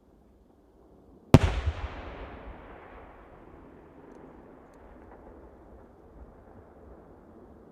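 A single firework shell bursting with one loud bang about a second in, followed by a long rumbling echo that dies away over several seconds.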